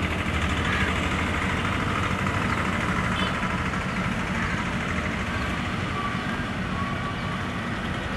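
Diesel locomotive running as the train approaches, a steady low engine drone with an even noise over it.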